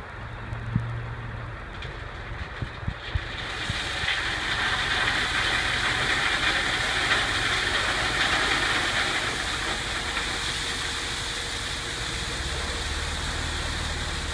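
Ford F-650 dump truck's engine running with a few sharp knocks. From about three and a half seconds in, crushed rock pours out of the tipped bed through the open tailgate in a loud, steady rushing rattle over the engine.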